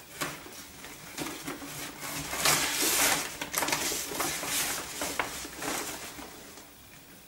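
Rustling and light knocks of purchases being rummaged through and handled, loudest about two and a half seconds in, then growing quieter.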